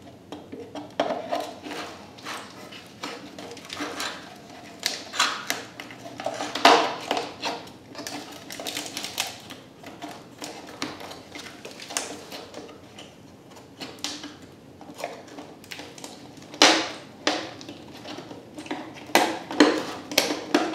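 Plastic tail light lens being pried off its housing on a 1978–81 Camaro tail light: a string of irregular clicks, creaks and snaps as the pry tool works around the edge, with two louder cracks partway through. It is the sound of the lens breaking its seal over the stuck outer body gasket.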